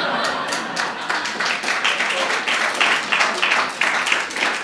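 Audience clapping and laughing after a punchline: a dense patter of many hands.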